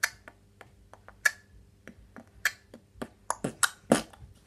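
An irregular series of sharp clicks and pops, crowding together into a quick run of louder pops in the last second and a half.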